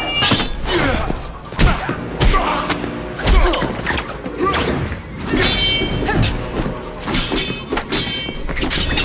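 Movie fight sound effects: a series of punch and kick impact thuds, several in quick succession at times, over a music score.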